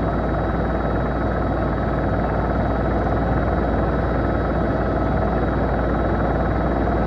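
Steady, dense rumbling noise with a deep hum beneath it and no distinct engine note or voice standing out.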